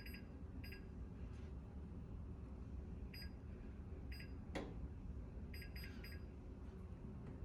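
Electronic timer on a Hoover oven giving short, high beeps as its buttons are pressed to set the timer: single beeps about a second and three seconds in, then a quick run of three near the end. One click about halfway through.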